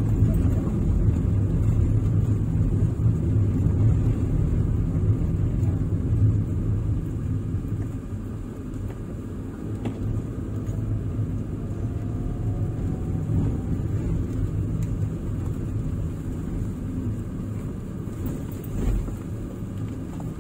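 Car cabin noise while driving: a steady low rumble of engine and tyres on the road, easing a little about eight seconds in, with a faint rising whine around the middle.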